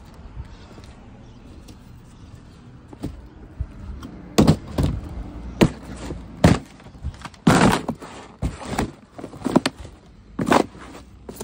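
A cardboard box being stomped flat under hiking boots: a run of loud thuds and crunching cardboard starting about four seconds in, roughly one a second.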